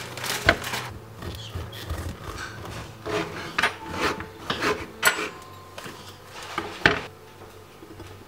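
A paper bag rustling as it is pulled off a loaf, then a long knife sawing through a seeded loaf of bread on a wooden cutting board in rasping strokes. A few sharp knocks of the knife and the slices on the board and plate come through.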